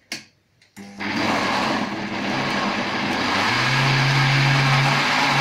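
A click or two, then a countertop jug blender switches on about a second in and runs steadily, its motor humming as the blade chops strawberries and banana.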